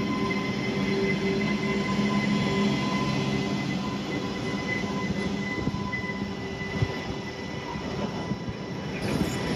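WAG-12 three-phase electric freight locomotive rolling slowly past, with a steady electric hum and whine over wheels running on the rails. The hum fades about halfway through, leaving the rolling of the wheels, with a single knock shortly after.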